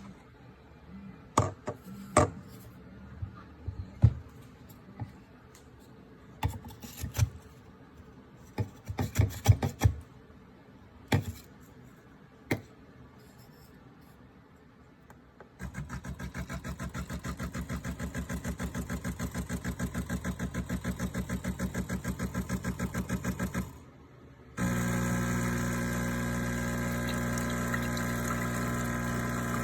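De'Longhi La Specialista Arte espresso machine handled and then run: scattered clicks and knocks for the first dozen seconds, then the machine running with a fast pulsing hum for about eight seconds, a brief pause, and a louder steady hum from near the end.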